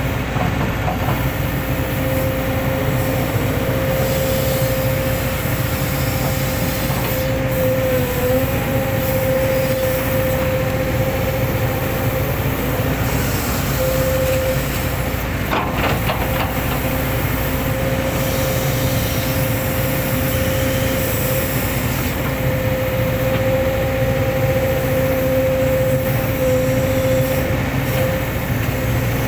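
Hitachi excavator's diesel engine and hydraulics running steadily under work, with a constant whining tone and a single knock about halfway through.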